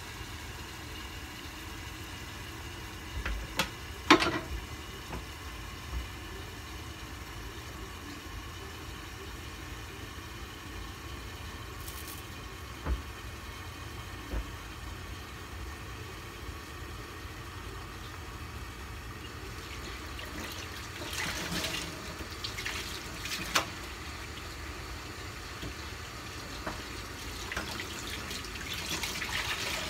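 Chicken cooking in a covered pan on a gas burner: a steady bubbling, sizzling hiss, with a sharp knock about four seconds in and louder crackling spurts around twenty-one to twenty-four seconds and again near the end.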